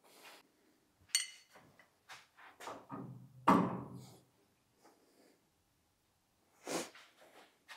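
Several knocks and clicks as car body parts and a steel chassis-table clamp are handled and fitted. The loudest is a clunk with a short ring about three and a half seconds in, and another knock comes near the end.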